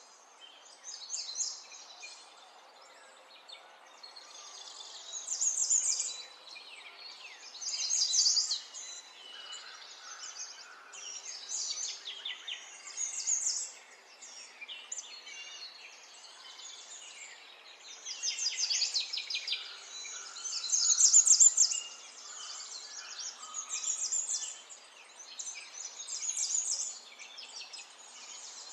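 Songbirds chirping, with phrases of rapid high trills coming every few seconds.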